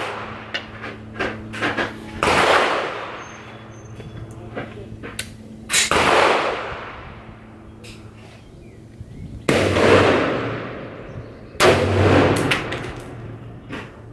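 Four loud rifle shots, each followed by a long fading echo, with some fainter sharp pops in between.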